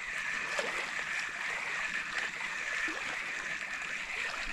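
Small waves lapping and trickling among shoreline rocks in shallow water, with a steady high-pitched hum over it.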